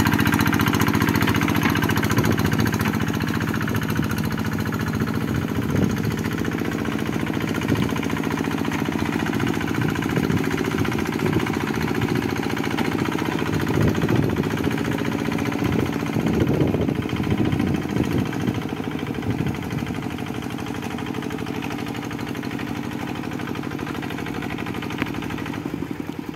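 Two-wheel hand tractor's single-cylinder diesel engine running steadily under load as it drags a tiller through flooded paddy mud. It grows gradually fainter over the stretch.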